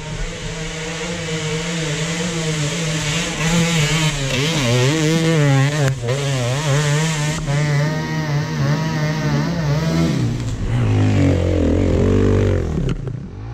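Enduro dirt bike engines revving hard under load on a steep hill climb. The pitch rises and falls in quick throttle bursts through the middle, then settles lower and louder near the end as a bike comes close.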